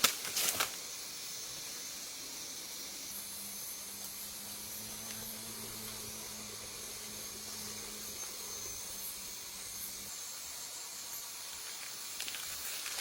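A few sharp knocks in the first second, then a steady high-pitched hiss with no distinct events.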